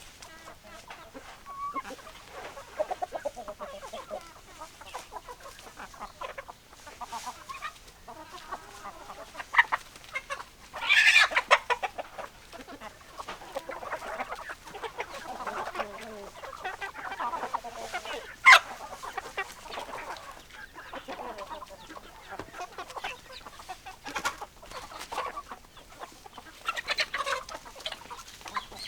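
Domestic chickens clucking continually in short, uneven calls. About eleven seconds in, one bird gives a louder, higher call lasting about a second, and a sharp click is heard about two-thirds of the way through.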